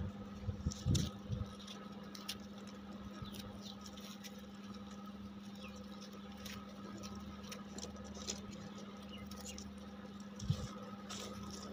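Dried cow-dung cakes being handled and crumbled in a metal pot: dry scratching and crumbling rustles with a few light knocks, the loudest about a second in and again near the end. A steady low hum runs underneath.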